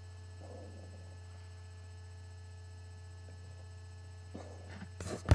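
Steady electrical mains hum with a few faint soft sounds, ended by a single sharp, loud knock near the end.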